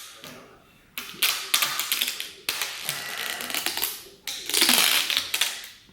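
MUC-OFF tubeless rim tape being pulled off its roll and pressed tight onto a bike rim: three crackling, clicking pulls of about a second and a half each.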